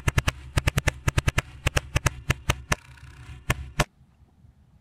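Full-auto pellet gun firing rapid strings of sharp shots, about six to eight a second, over a steady low hum, with two last single shots before it stops suddenly a little under four seconds in.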